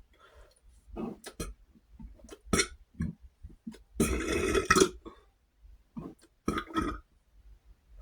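A man burping after drinking cola: a few short sounds early, then one long, loud burp about four seconds in lasting about a second, and a shorter burp a couple of seconds later.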